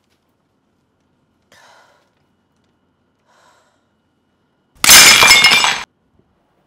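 Porcelain teaware smashing on the floor: one loud, sudden crash of breaking china lasting about a second, after two faint clinks.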